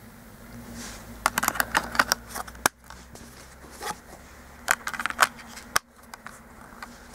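Blu-ray discs being handled in a steelbook's clear plastic disc tray: several quick clusters of clicks and taps of disc on plastic.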